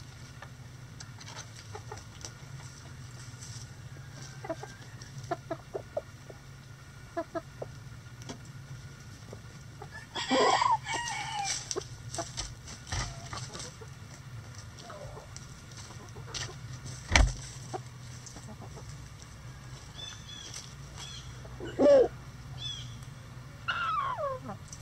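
Backyard chicken flock clucking and calling, with light soft ticks in the first few seconds. About ten seconds in comes one loud drawn-out call that bends in pitch. A sharp knock falls near the middle, and two loud falling squawks come near the end.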